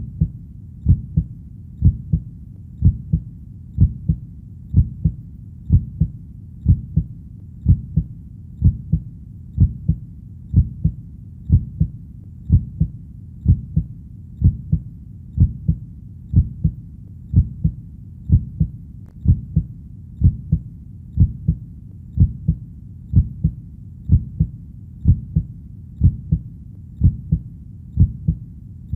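Heartbeat sound: a steady, slow lub-dub of about one beat a second, each beat a low double pulse over a faint low background hum.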